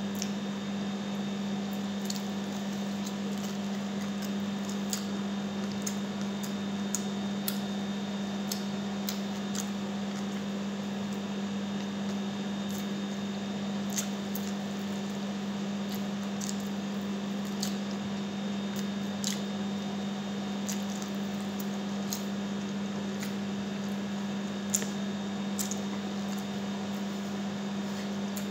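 A person eating honey garlic chicken by hand: chewing and mouth sounds with scattered short, sharp clicks, over a steady low hum.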